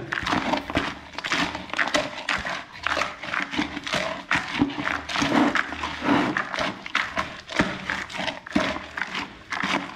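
A hand stirring wet carp groundbait of maize, hemp, tiger nuts and flaked grain in a plastic bucket, freshly dosed with liquid flavouring: an irregular, busy rustling and crunching of the grains.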